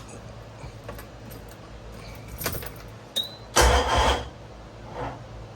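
Ignition keys jangling and a failed attempt to crank the rebuilt Yamaha 90 hp two-stroke outboard: the key is turned, and a short noisy burst about three and a half seconds in is all there is, with no engine catching, because the battery is dead.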